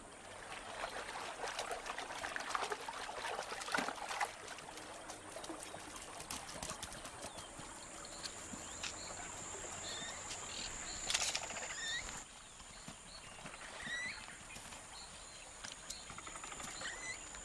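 Water splashing and trickling around a swimming capybara, then natural riverbank ambience with short bird chirps and a thin steady high tone. A short, louder burst of noise comes about eleven seconds in.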